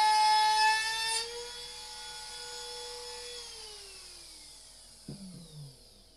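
Trim router with a 1/4-inch upcut spiral bit running at full speed with a high whine; the loud cutting noise stops about a second in. About three and a half seconds in the router is switched off and winds down, its pitch falling as it fades, with a couple of light knocks near the end as it is set down.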